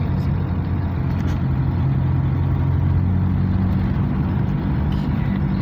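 Car engine running steadily as the car climbs a steep hill road, heard from inside the cabin, with a low hum and road noise.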